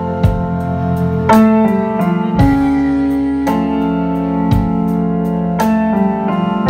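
Live band playing an instrumental passage: sustained electric keyboard chords that change every second or two over a steady bass line, with electric guitar and regular drum and cymbal hits.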